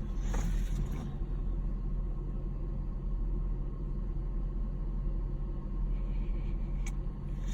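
Steady low rumble of a car's engine and road noise heard from inside the cabin, with a single sharp click about seven seconds in.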